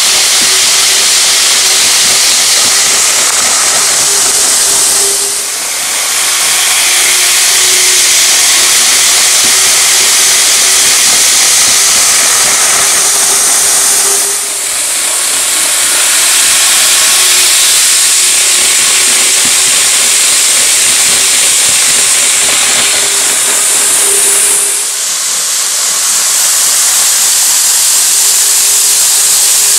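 Steady, loud hiss with a faint steady hum underneath, dipping briefly three times: the running noise of an N gauge model train.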